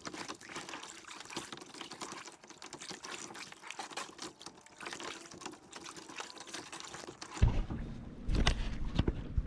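Kayak paddle strokes in calm water: splashing and water trickling off the blades. About seven seconds in, loud low rumbling and a few knocks of handling close to the microphone take over.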